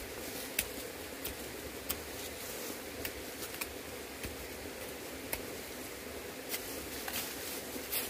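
Short-handled hand hoe scraping and chopping into soil, stones and dry leaf litter, giving irregular sharp clicks and scrapes about once a second, over the steady rush of a mountain stream.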